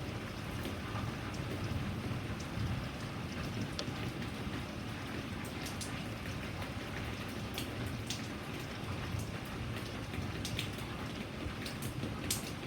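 Steady rain falling, with individual drops ticking sharply on a nearby surface now and then over a low, constant rumble.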